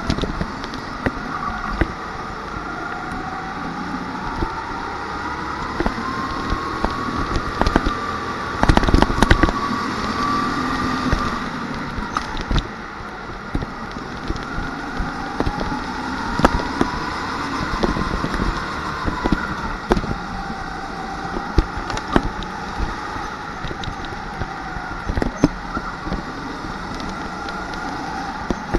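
Onboard sound of a rental go-kart lapping a track. Its motor note rises and falls in pitch as it speeds up and slows for the corners, with frequent knocks and rattles from the chassis, and it gets louder for a few seconds about a third of the way in.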